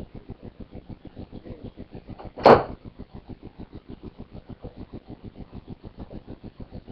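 Skateboard rolling with a rapid, even clatter of about eight pulses a second, and one loud clack of the board striking the ground about two and a half seconds in.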